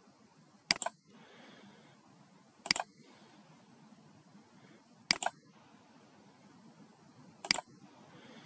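Computer mouse clicked four times, about two seconds apart, each click a quick pair of ticks, over faint room hiss.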